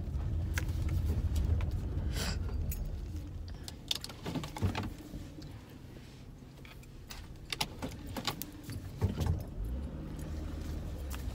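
Inside a car: a low engine and road rumble for the first few seconds that then drops away, followed by scattered clicks and knocks with keys jangling.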